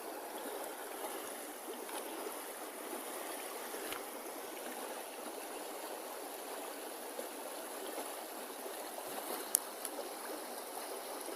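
Steady flow of stream water, an even running-water noise, with a sharp click about nine and a half seconds in.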